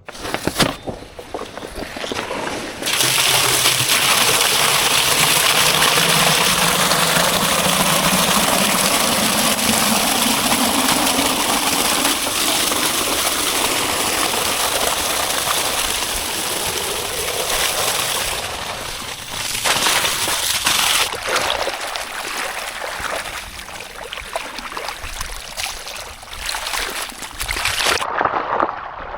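Tractor engine running, its pitch rising over several seconds, under a loud rushing, splashing noise. The noise cuts off near the end.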